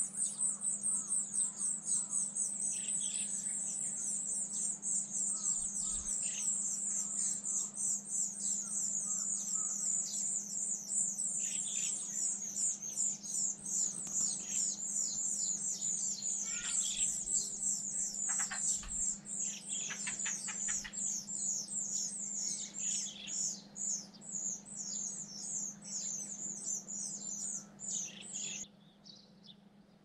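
A brood of nestlings calling in the nest: many rapid, high-pitched cheeping calls overlapping in a dense, continuous chorus, which cuts off suddenly near the end.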